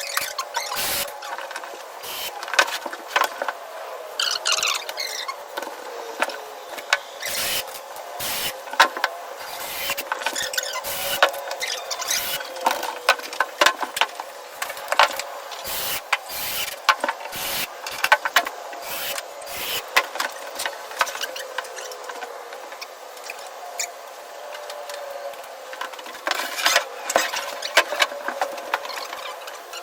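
Fast-forwarded timber construction sounds: a rapid, pitched-up clatter of knocks and clicks with squeaky high tones, from wood and screws being worked at timelapse speed.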